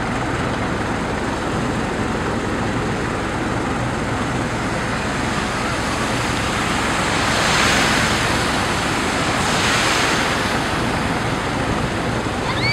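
Steady rumble and rush of a vehicle driving through shallow floodwater. About seven and ten seconds in, two oncoming cars pass through the water, each a swelling and fading hiss of spray.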